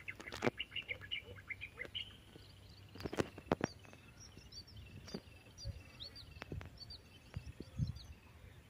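Birds chirping faintly in many short, quick calls, with a few soft knocks scattered through.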